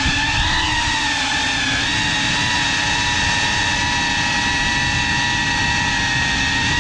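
FPV quadcopter's motors and propellers whining steadily, the pitch dipping and rising slightly with throttle changes, over a low rushing rumble.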